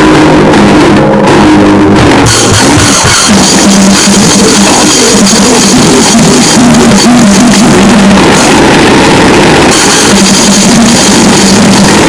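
Grindnoise/noisecore recording: distorted guitar and pounding drums smeared into a dense, clipped wall of noise at full volume, with a sustained droning pitch underneath. The harsh top end grows brighter about two seconds in.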